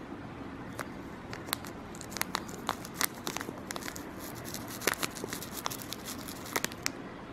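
Foil seasoning sachet crinkling in short, irregular crackles as flavour powder is shaken out over a dry instant-noodle block.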